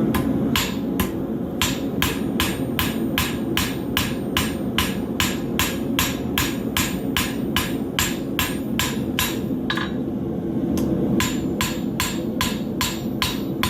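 Blacksmith's hammer striking a hot horseshoe on an anvil, flattening it into a knife blade, in a steady rhythm of about two to three ringing blows a second. The blows pause briefly about two-thirds of the way through, then resume, over a steady low rumble.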